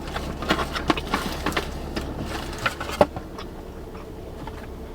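Close-up eating sounds: a dense run of small wet clicks and crackles from chewing tacos, thinning out after about three seconds, with one sharper click near the three-second mark. A steady low hum sits underneath.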